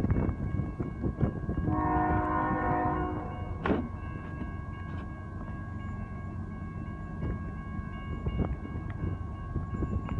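A CSX freight train's locomotive horn sounds one short blast, a chord of several notes lasting about a second and a half, roughly two seconds in. It plays over the train's steady low rumble, with scattered clicks and a thin steady high tone running on after it.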